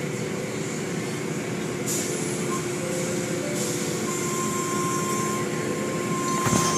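Automatic tunnel car wash heard from inside the car: a steady rush of water spray and cloth wash curtains sweeping over the body, over a steady machine hum. A higher steady tone joins about four seconds in.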